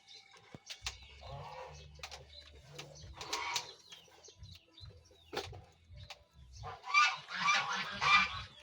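Young goat coughing after suckling, in short harsh bouts: a few weak ones early, then a louder run of coughs near the end.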